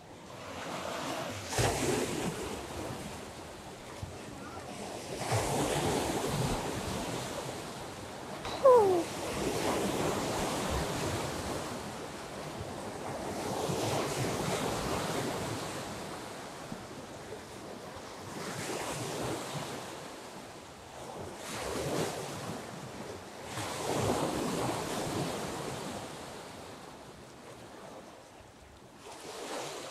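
Wake waves from a passing catamaran washing up onto a muddy river bank, swelling and fading every few seconds, with some wind on the microphone. A short falling squeak about nine seconds in is the loudest moment.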